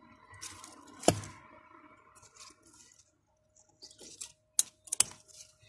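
A few sharp clicks and taps, the loudest about a second in and a cluster near the end, with faint rustling and a faint steady hum between them.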